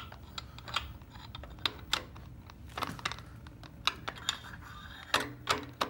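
Irregular light metallic clicks and taps as an oil-pump priming shaft is lowered through the distributor bore of a big-block Ford V8 and fished onto the oil pump drive.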